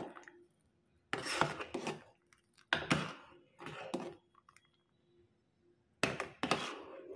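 Steel ladle stirring sabudana kheer in a metal pan, scraping the pan in several separate strokes with short pauses between them.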